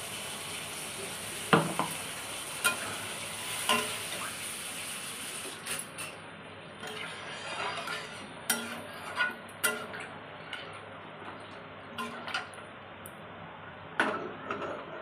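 A metal spatula stirring watery potato curry in a steel kadhai, scraping and knocking against the pan every second or two. A steady hiss from the pan fills the first five seconds or so, then stops.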